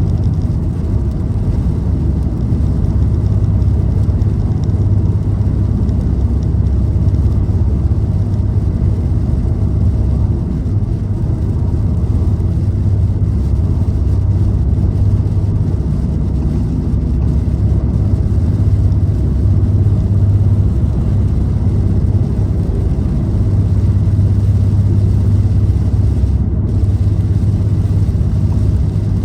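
Car driving steadily at cruising speed: a constant low rumble of engine and tyres on the road.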